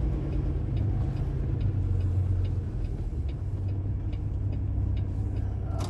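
Semi-truck cab interior while driving: a steady low drone of the truck's engine and road noise, with faint light ticks now and then.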